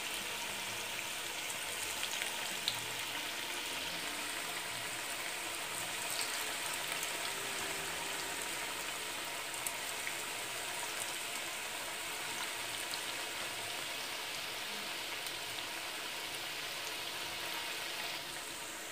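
Cabbage and gram-flour (besan) koftas deep-frying in hot oil in a kadhai: a steady sizzle with small crackles. It eases slightly near the end.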